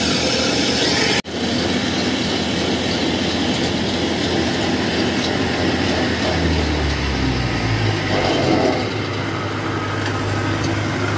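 Kubota 70-series rice combine harvester's diesel engine running close by as the machine crawls up the bank on its tracks. The engine note deepens and grows fuller about six and a half seconds in, with a brief dropout about a second in.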